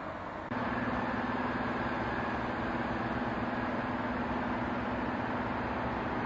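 Steady mechanical hum with a constant low tone running through it. It starts abruptly and louder about half a second in, replacing a duller, quieter hum at an edit.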